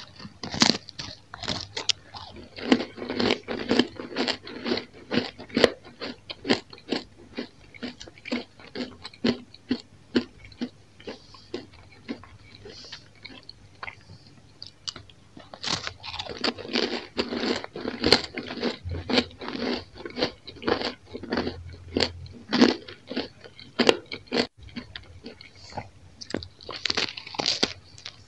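Crunching and chewing of crispy Roumi-cheese bread crisps: many sharp crunches from repeated bites, with softer chewing between them and a sparser, quieter stretch about halfway through.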